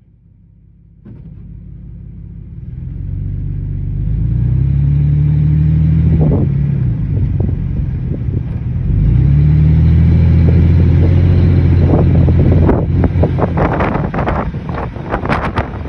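Car engine pulling away and accelerating, its pitch rising, dipping once about six seconds in, then rising again. From about thirteen seconds a rough, irregular noise rises over the engine.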